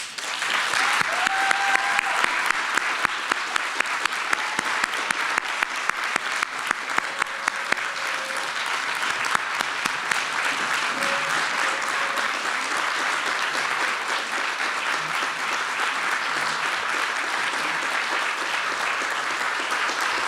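Audience applauding. One clapper close by claps sharply at about three claps a second through the first half, over the steady clapping of the room.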